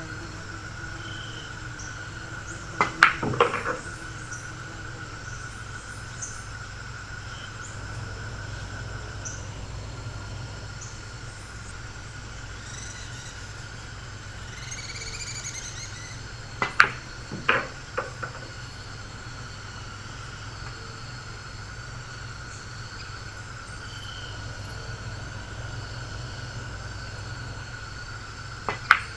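Pool shots on a billiard table: each is a sharp click of the cue tip on the cue ball, quickly followed by the clack of balls colliding. This happens three times, about a quarter of the way in, a little past halfway, and near the end, over a steady faint hum.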